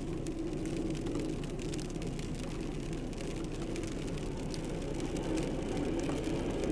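Snowplow truck's engine running steadily with a low, even hum.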